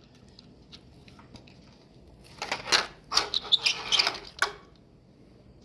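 Small die-cast toy cars being handled: a quick cluster of sharp clicks and clinks lasting about two seconds, starting about two and a half seconds in, with a few faint ticks before it.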